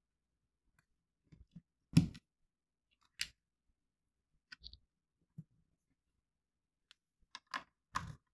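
Small plastic building bricks clicking as they are pressed together by hand and knocked against a tabletop: a few separate clicks and knocks, the loudest about two seconds in, and a quick run of them near the end.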